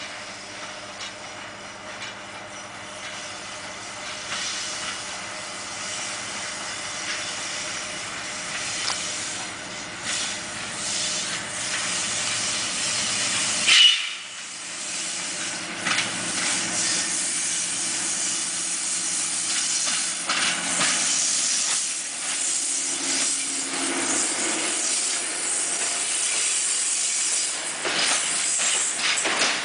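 PKP SM42 diesel shunting locomotive approaching and passing close with its engine running, hauling a coach and a steam locomotive. A hiss grows louder as it nears, and the wheels clack over the rail joints near the end as the coaches go by.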